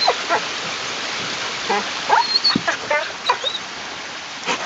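Hound mix dog giving short, quickly falling whines, a few at the start and a run of them about two to three seconds in, over a steady rush of creek water.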